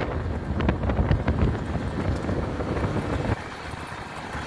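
150 cc motorcycle riding along a dirt road, its engine rumble mixed with wind buffeting the microphone and a few short rattling clicks early on. The sound drops suddenly in level a little over three seconds in.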